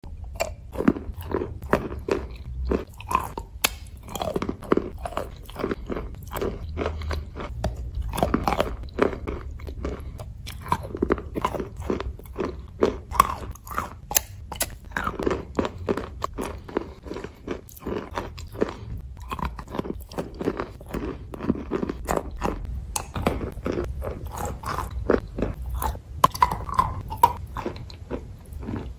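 Biting and chewing of sawn chalk bars coated in clay paste: a dense, irregular run of crisp crunches and snaps, with chewing between the bites.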